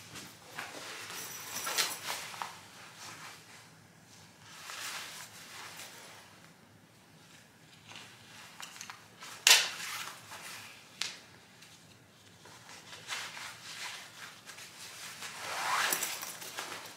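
Velcro waist belt of a TushBaby hip-seat carrier being pulled open, wrapped around the waist and pressed shut, with rustling of the strap and fabric. The sound comes as several separate short tearing and rustling noises, the loudest a sharp one about nine and a half seconds in and a longer one near the end.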